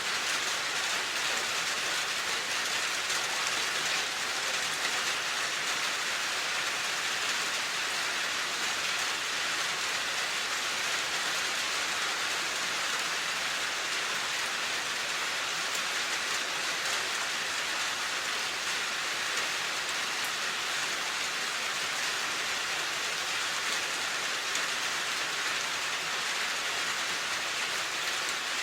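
Steady rain falling, an even hiss of many drops on surfaces.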